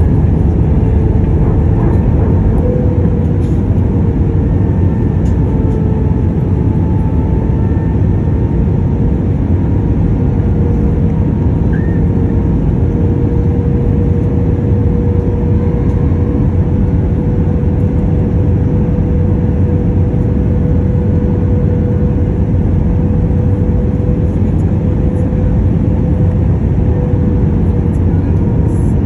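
Cabin noise of an Airbus A319-112 in flight with flaps extended: a steady, loud roar of airflow and its CFM56 engines, with an engine hum holding one pitch that drifts up very slightly.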